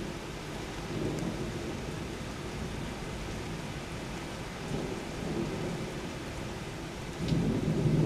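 Steady heavy rain with thunder rumbling low under it, swelling twice, then a louder roll of thunder building near the end.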